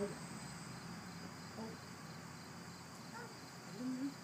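Faint, steady drone of insects, with a toddler's short vocal sounds near the end.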